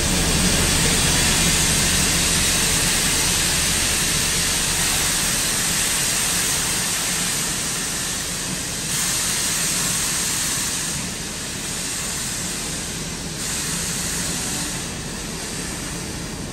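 Steam hissing loudly and steadily from standing NSW steam locomotives 3526 and 3801. It gradually eases, with a few small drops in level in the second half.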